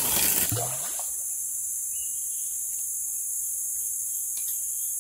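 Forest insects (crickets or cicadas) keep up a steady, high-pitched drone. A brief louder rustle-like noise comes in the first second.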